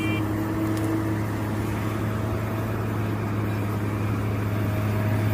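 Steady engine-like drone with a strong, even low hum, like a heavy machine's engine running.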